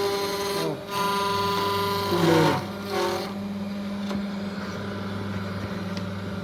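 A CNC machine with a 1 hp Chinese spindle running, giving a steady motor whine with several tones. The pitch dips and slides down briefly twice, then after about three seconds it settles to a quieter, lower steady hum.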